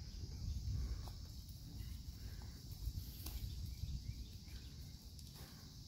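Steady high-pitched insect drone, with a low wind rumble on the microphone and a few faint clicks, one sharper about three seconds in.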